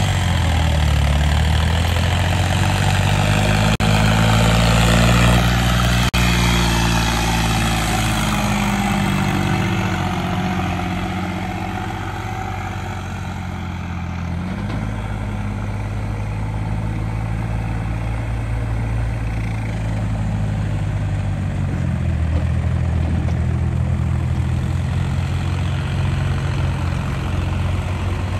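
Diesel tractor engine running hard, as when pulling a loaded trolley. Its note changes about halfway through, then holds steady.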